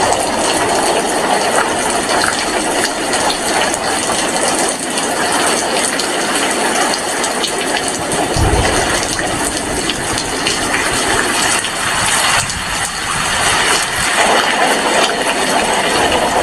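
Heavy rain falling steadily: a dense, even hiss of drops with fine patters throughout, and one brief low thump about eight seconds in.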